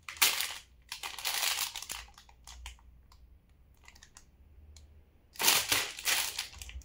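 Plastic cat-food pouches crinkling as they are handled and turned over, in bursts of rustling and crackling: most in the first two seconds and again near the end, with scattered small crackles between.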